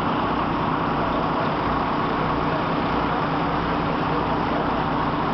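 Steady rushing of floodwater pouring across a road, mixed with road traffic noise.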